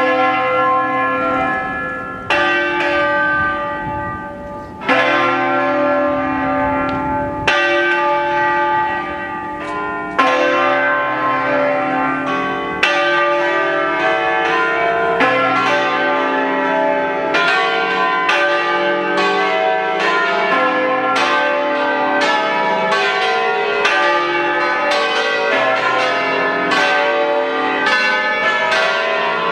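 Church bells of the eight-bell ring cast by Pasquale Mazzola in 1879 in C, rung by swinging. At first single ringing strikes come about two and a half seconds apart. From about halfway through, more bells join and the strikes come fast and overlapping in a continuous peal.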